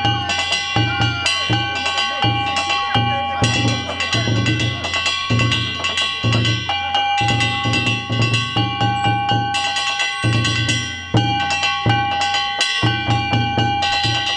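Danjiri festival music: a drum beaten in a quick, even rhythm while hand-struck gongs (kane) keep up a ringing metallic clang over it.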